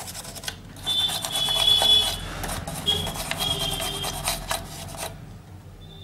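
A small stiff brush scrubbing back and forth over a computer motherboard, its bristles rasping on the circuit board in quick strokes, then stopping about five seconds in.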